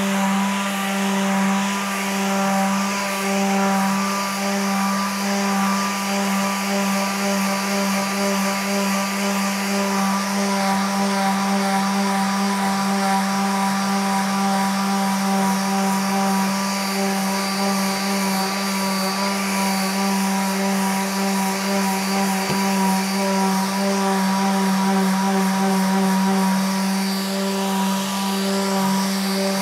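Worx WX822 cordless detail sander, with its brushed motor, running continuously with a coarse P40 pad as it sands wood. It makes a steady, even hum that holds one pitch.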